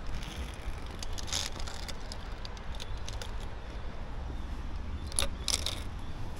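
Metal clips of a ropes-course safety lanyard clinking and jingling in two short clusters, about a second in and again near the end, over a steady low rumble on the microphone.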